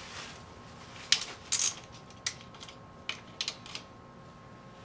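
Irregular sharp metal clicks and ticks from a socket wrench working the 10 mm nuts on the oil filter cover of a 2014 Suzuki DRZ-125L engine. The clicks come singly and in short clusters, with a brief rattle about one and a half seconds in.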